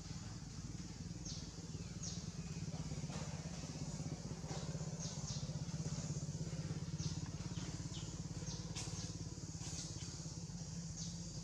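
An engine running steadily, swelling a little louder midway, with short high chirps repeating over it.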